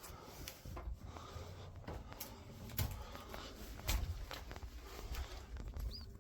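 Irregular knocks, scrapes and rubbing of someone moving about and handling things in a small enclosed room, with a few louder thumps.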